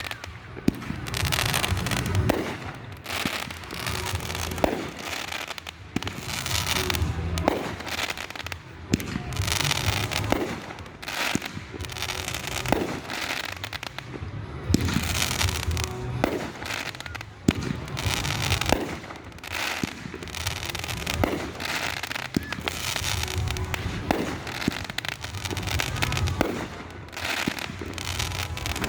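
Aerial fireworks going off in a steady barrage: many sharp bangs, about one to two a second, over continuous crackling and low rumbling booms.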